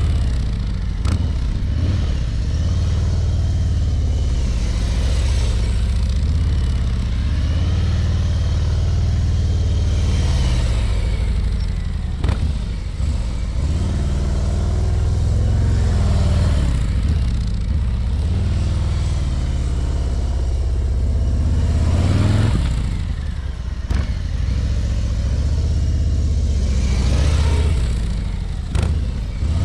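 Harley-Davidson Ultra Limited's V-twin engine running at low revs during slow-speed riding and turning. Its pitch and loudness rise and fall several times as the touring motorcycle comes and goes past.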